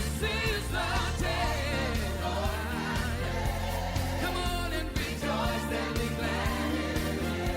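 Gospel music: voices singing with a wavering vibrato over a steady low bass line.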